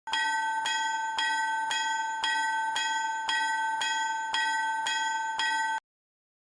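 Japanese level-crossing warning bell ringing, a single bright pitched ding repeated about twice a second, then cutting off suddenly near the end.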